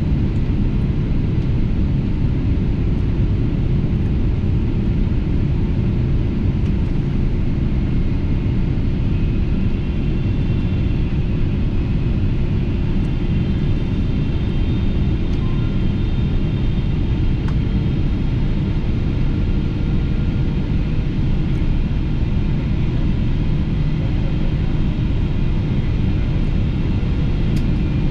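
Steady cabin noise of a Boeing 777-200LR on approach, heard from a window seat: the low rumble of its GE90 turbofans and the airflow, with a faint higher whine joining about ten seconds in.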